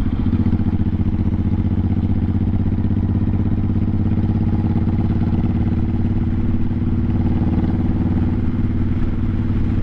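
1986 Honda Shadow 700 (VT700C) V-twin engine running steadily while riding along at an even road speed.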